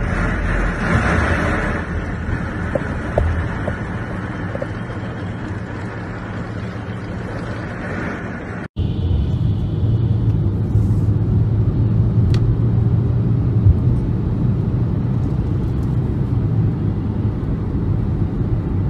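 Storm wind and heavy rain rushing as a steady noise, which cuts off suddenly about nine seconds in. It gives way to the steady low rumble of a vehicle driving along a road.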